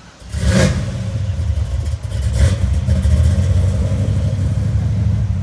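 A car engine running close by with a deep, steady rumble, blipped briefly about half a second in and again about two and a half seconds in.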